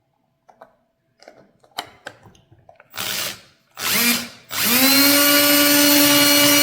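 Handheld power drill run in two short trigger pulls, then spun up for a longer steady run of about two and a half seconds, its motor whine rising as it comes up to speed; light handling clicks come before it.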